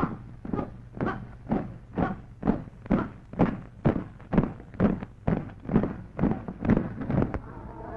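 A rhythmic beat in marching time on an old film soundtrack: short, sharp strokes about twice a second, over a steady low hum.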